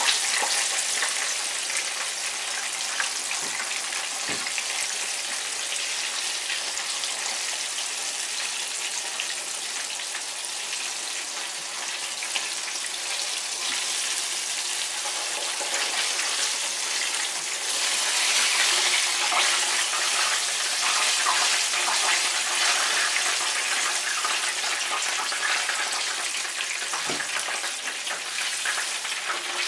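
Flour-coated Banga Mary fish deep-frying in a pan of hot oil: a steady sizzle that grows louder for a few seconds about two thirds of the way through.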